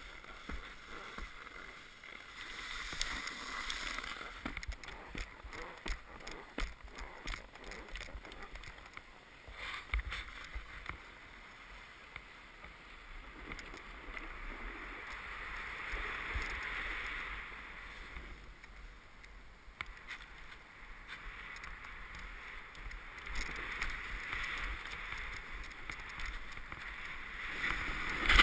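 Snowboard sliding and carving over packed snow: the board's edge scrapes and hisses, swelling and fading several times as it turns, with scattered knocks and a louder jolt near the end.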